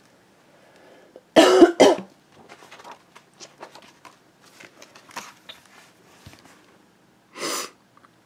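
A person coughs twice in quick succession about a second and a half in, then there are faint clicks and rustling as the book is handled, and one more short burst of coughing near the end.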